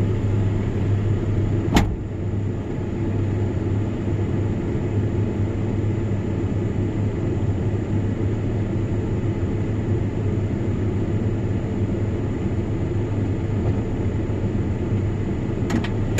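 Vehicle engine running steadily at idle, with one sharp click about two seconds in.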